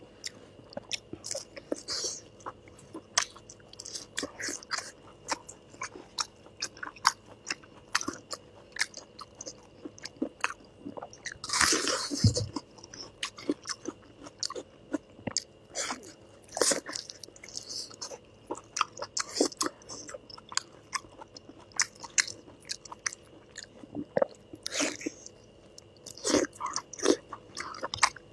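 Close-miked chewing and biting of a glazed braised meat roll: wet, sticky mouth clicks and smacks at an irregular pace, with one longer, louder bite-and-chew noise about twelve seconds in.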